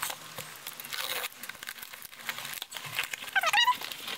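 Cardboard parcel being handled and opened, with rustling and scattered crackles and clicks of the box and packing. A short wavering squeak comes about three and a half seconds in.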